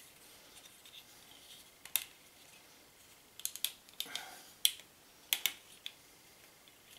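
Laser-cut MDF puzzle pieces clicking and tapping against each other as they are handled and pushed together: a scattered run of short, sharp clicks, one about two seconds in and most of them in the second half.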